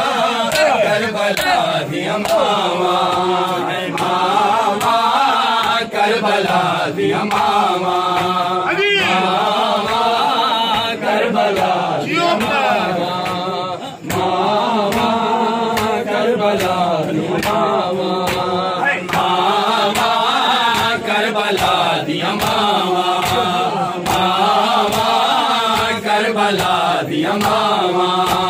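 A group of men chanting a Shia nauha lament in unison, kept in time by a steady beat of open hands slapping bare chests (matam).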